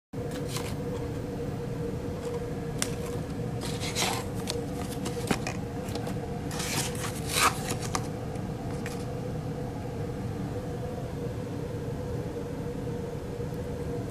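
Light clicks and scrapes of hands handling lab equipment at an electronic balance, clustered in the first half, over steady room noise with a faint constant hum.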